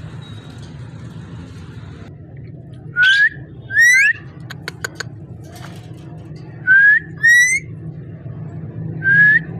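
Indian ringneck parakeet whistling: three times a pair of short rising whistles, each note sweeping up, with a steady low hum behind it.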